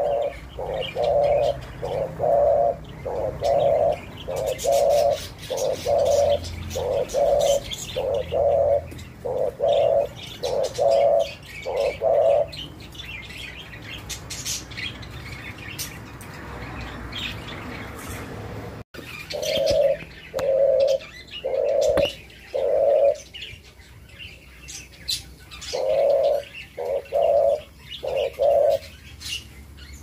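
Spotted dove cooing: a long run of short, low coo notes about one a second, then after a pause two shorter series of coos.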